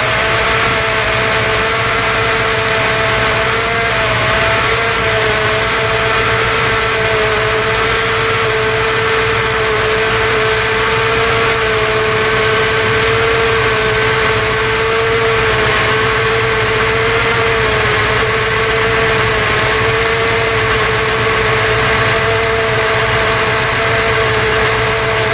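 1994 Ford 7.3 L Power Stroke turbo-diesel V8 idling on a cold start, with a steady squeal from a noisy idler-pulley bearing that only complains when it's cold.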